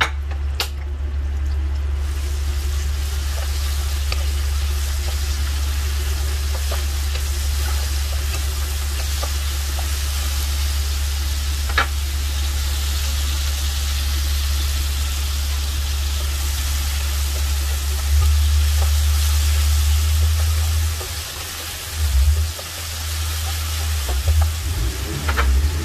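Chopped shallots, garlic and chillies sizzling in hot oil in a non-stick wok, a steady hiss over a low hum. Near the end a spatula stirs them through the oil.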